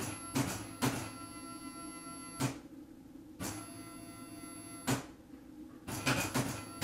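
NEMA 34 stepper motor turning an aluminum robot arm through a 5-to-1 gearbox: a steady hum with several fixed whining tones, broken by sharp clicks at uneven intervals, about eight in all.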